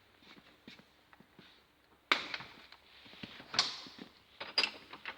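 A care bed's back panel being fitted onto its frame: three sharp knocks about two, three and a half and four and a half seconds in, with lighter clicks and taps between, as the panel's prongs are pushed into their sockets.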